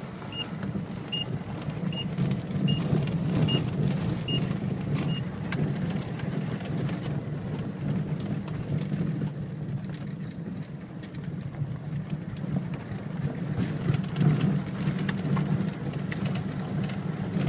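A car driving slowly along a dirt and gravel lane: a steady low rumble of the engine and tyres with a gritty crackle of gravel under the wheels. For the first five seconds a short high beep repeats evenly, a little more than once a second, then stops.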